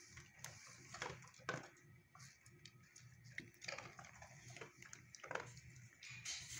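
Young Doberman nosing and licking at a concrete kennel floor: faint, irregular clicks and brief rustles.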